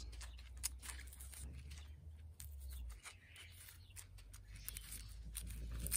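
Faint crackling and rustling of the dry, papery outer scales of a rotting hippeastrum bulb handled by gloved fingers, in scattered small clicks over a low steady hum.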